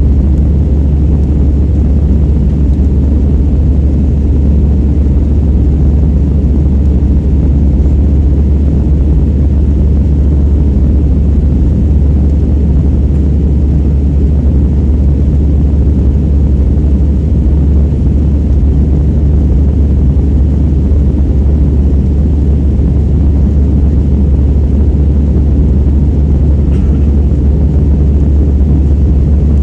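Cabin noise of a Sukhoi Superjet 100 in flight: a steady, deep drone of its twin SaM146 turbofan engines and the rushing air, heard from inside the cabin.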